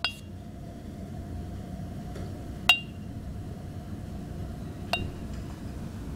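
Glass cups clinking: three sharp clinks with a brief bright ring, one right at the start, the loudest about two and a half seconds in, and a softer one near five seconds.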